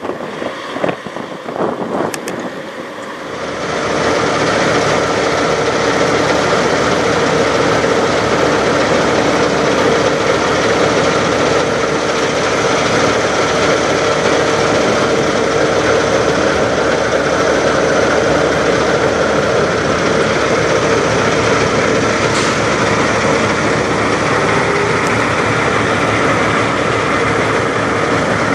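Wind on the microphone with a few knocks for the first few seconds, then a Kenworth semi truck's diesel engine idling steadily, with a constant hum running through it.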